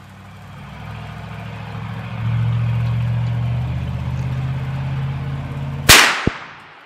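A low engine drone builds over the first couple of seconds and holds steady. Near the end a single rifle shot from a Ruger American Ranch rifle in .350 Legend, firing a 180-grain Winchester Super X Power Point load, cracks loudly and rings away.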